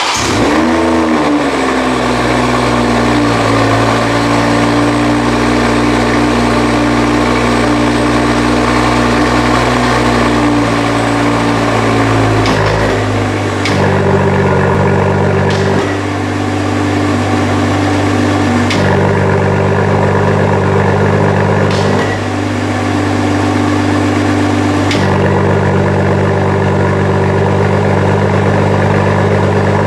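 BMW M440i's B58 turbocharged inline-six, breathing through an Akrapovič four-pipe exhaust and HJS downpipe, starting up with a brief flare in revs and then idling high and steady. The idle slowly settles lower, with a change in tone about 13 seconds in.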